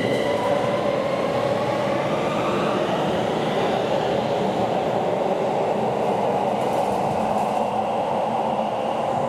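Keikyu New 1000 series electric train accelerating along the platform. Its traction motors whine and rise in pitch over the first few seconds, over a steady rumble and rattle of wheels on the rails.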